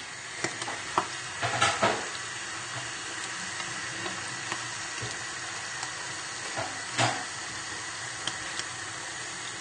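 Whitebait deep-frying in a pan of hot oil: a steady sizzle, with a few light knocks in the first two seconds and another about seven seconds in.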